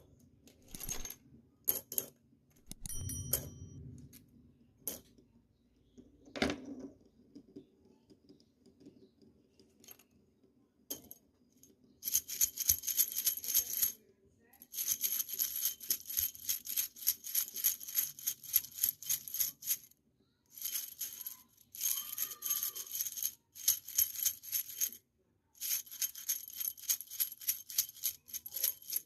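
Metal-and-wood hand rattle (chocalho): scattered clicks and brief shakes at first, then, from about twelve seconds in, rapid continuous shaking in several runs with short pauses between them, its metal pieces jingling with a bright ringing tone.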